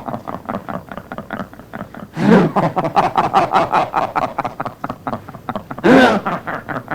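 A man's deep, rattling evil laugh in fast, stuttering pulses, with two louder bursts, one about two seconds in and one near the end.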